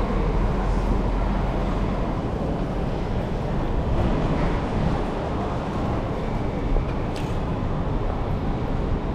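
Steady rumble of vehicle traffic, with a single sharp click about seven seconds in.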